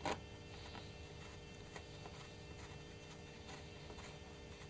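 A small screwdriver driving a screw into a Titanium PowerBook's metal bottom case: a sharp click as the tip seats right at the start, then faint, irregular ticks as the screw is turned.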